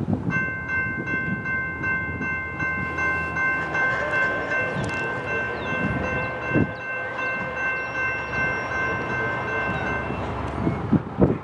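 Norfolk Southern GE ES44AC locomotive's air horn sounding a chord as the train approaches, broken into short pulses at first, then held for several seconds and cutting off near the end. A low rumble from the oncoming train lies under it.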